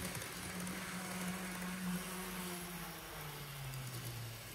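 Digital sound decoder's TGV Sud-Est traction sound playing through the N gauge model's small speaker: a steady electric hum that drops in pitch about three seconds in, over a faint hiss.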